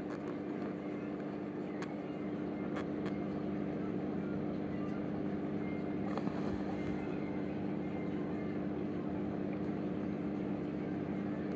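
Aquarium pump humming steadily with a low drone, with a few faint clicks.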